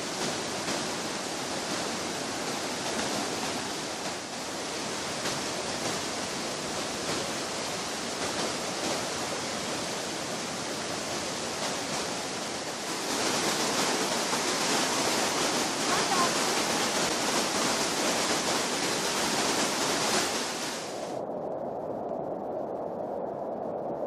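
Steady rush of river rapids. It becomes a louder waterfall roar about halfway through. Shortly before the end it drops suddenly to a duller, muffled rush.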